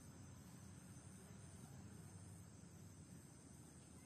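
Near silence: a faint, steady background with a high, even chirring of insects.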